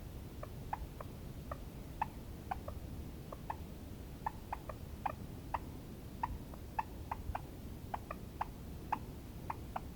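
Wild turkeys clucking: a quick, uneven run of short, sharp clucks, about three a second, over a steady low background noise.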